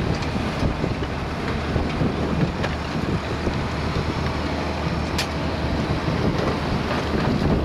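Tractor engine running steadily while ploughing, with wind buffeting the microphone.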